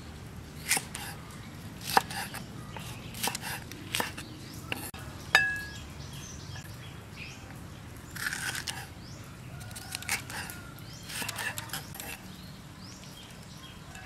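Kitchen knife slicing bell peppers on a thick wooden chopping board: a series of sharp knocks of the blade on the wood over the first five seconds or so, the loudest with a brief metallic clink. Longer, rougher crunching cuts follow in the later half.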